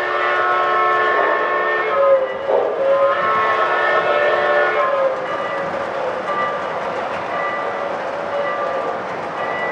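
Lionel K4s model steam locomotive's sound system blowing a long multi-tone steam chime whistle, strongest in the first half and then softer, over the rolling noise of the model freight cars.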